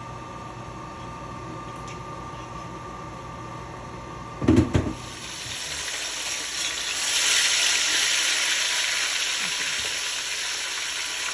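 Fish frying in hot oil: a loud sizzle starts about five seconds in, swells, then slowly eases. Before it there is a steady low hum and a brief louder sound.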